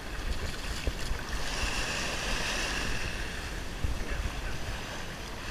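Small surf washing up onto a sandy beach, with wind rumbling on the microphone. The wash swells louder for a couple of seconds about a second and a half in.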